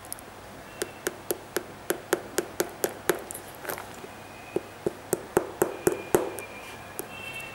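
Fingertips tapping on the sole and carbon-fibre shank plate of a Nike Air Foamposite One sneaker: two runs of quick, sharp taps, about four a second, with a pause of about a second and a half between them and one last tap near the end.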